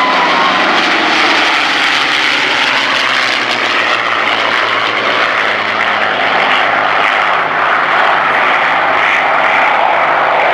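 Packard Merlin V12 engines of P-51 Mustang fighters running as the aircraft fly past: a steady, loud drone whose pitch drops slowly over the first few seconds.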